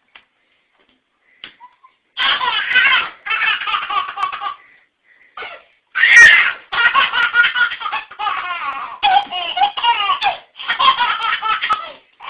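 Baby belly-laughing in repeated bouts, starting about two seconds in, with the loudest burst around the middle.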